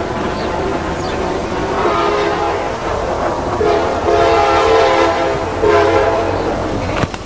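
Diesel locomotive's air horn sounding in several long blasts as the train approaches, the loudest blasts in the second half, over a low steady rumble from the train.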